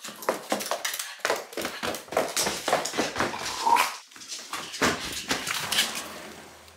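Small Shiba Inu (mame shiba) barking in a rapid run of short, sharp barks, stopping near the end.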